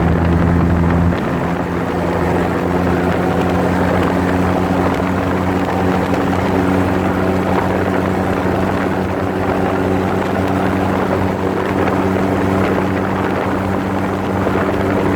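Motor tricycle engine running steadily under way, a continuous drone with road and wind noise. About a second in, its note shifts and the level dips briefly, then it holds steady again.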